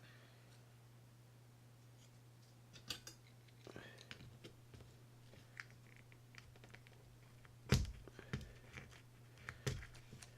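Small metal reel parts clicking and tapping as the spool tension bearing is worked out of a Shimano Citica baitcasting reel's side plate: a handful of light clicks, the sharpest about eight seconds in, over a faint steady hum.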